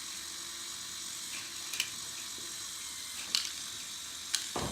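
Lego Technic bucket wheel excavator's electric motors and gear train running with a steady whir, and small loose pieces clicking sharply into the truck three times, then a thump near the end.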